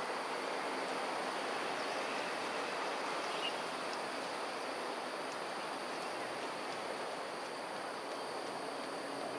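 Steady outdoor background noise, an even rush without any clear rhythm or pitch, with one faint short high peep about three and a half seconds in.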